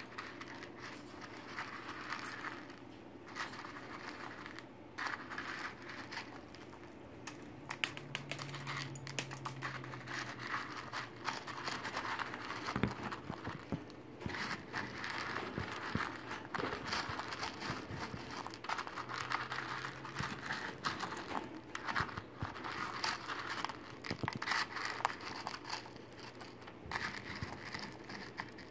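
White cockatoo crunching and picking through food in its dish with its beak: a dense, irregular run of crackling, crunching clicks.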